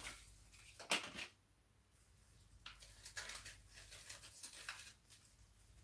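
Faint rustling of flower stems and leaves as a hand-tied bouquet is handled, with one sharp snap about a second in.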